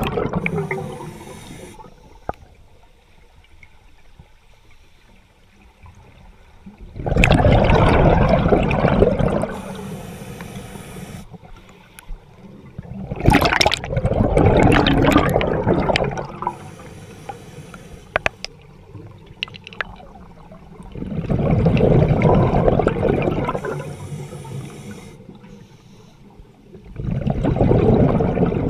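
Scuba diver breathing through a regulator underwater: loud bursts of exhaled bubbles, four of them, about every seven seconds, with a quieter hiss from the regulator on each inhale in between.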